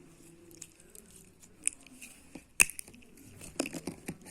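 Slime being played with, making irregular sticky clicks and pops. The sharpest pop comes a little past halfway, followed by a quick run of clicks near the end.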